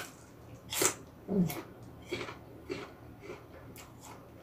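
Crisp bite into a fresh red Hong-ok apple, with a loud crunch just under a second in, followed by close-miked chewing with several smaller crunches. A brief low murmur of voice comes about a second and a half in.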